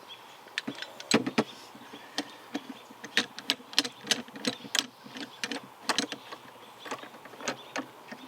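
Irregular clicks and metal knocks as a chainsaw guide bar is set down and a clamp is fitted and tightened on it.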